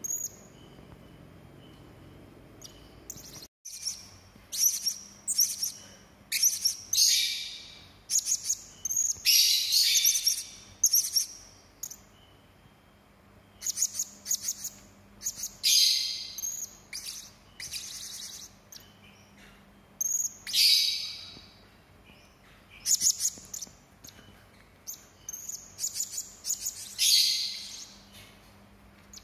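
Serindit (blue-crowned hanging parrot) calling: sharp, harsh, high-pitched chirps in rapid clusters, broken by several longer shrill screeching calls about a second long.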